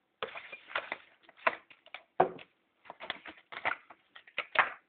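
A cardboard gift box being handled and pulled off a ceramic mug on a wooden tabletop: an uneven string of scrapes, rustles and sharp knocks.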